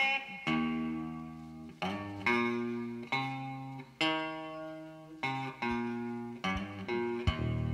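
Blues guitar opening a slow blues alone: single notes and chords struck about once a second, each left to ring and fade. Deeper notes join near the end.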